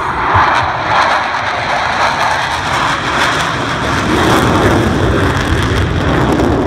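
Four twin-engine F/A-18 Hornet jets flying low in close formation: a loud rushing jet noise whose pitch slides steadily lower over the first few seconds.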